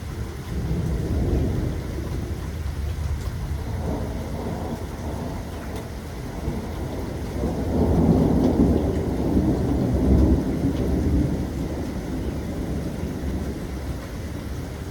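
Steady rain falling with rolling thunder: a low rumble swells about a second in, and a longer, louder roll builds from about seven seconds and fades by about eleven.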